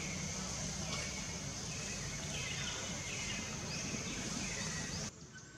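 Forest ambience: a steady high insect drone with short bird chirps scattered through it. The sound cuts out for about half a second near the end.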